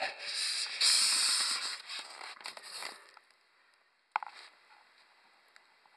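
Cardboard and plastic packaging of a boxed model train set scraping and rustling for about three seconds as the box is opened, followed by a single light knock just after four seconds.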